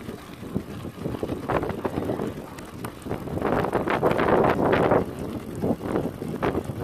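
A bicycle rolling over a gravel road, its tyres crunching, with wind buffeting the microphone in gusts that swell and fade, loudest about halfway through.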